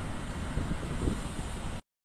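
Street traffic rumble of an electric tram rolling away along its track, mixed with cars on the road beside it. The sound cuts out abruptly to silence near the end.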